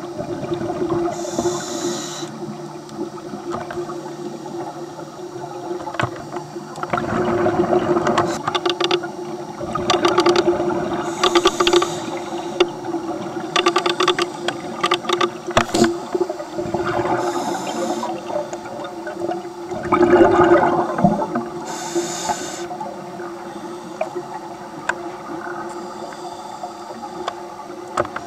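Scuba regulator breathing heard underwater: short high hisses of inhalation and several longer bursts of bubbling exhalation, a few seconds apart, over a steady hum.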